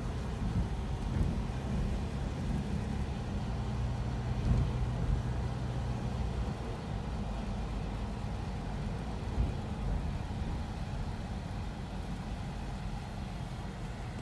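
Car engine and tyre noise heard from inside the cabin while driving slowly: a steady low rumble and hum that drops in level about six seconds in.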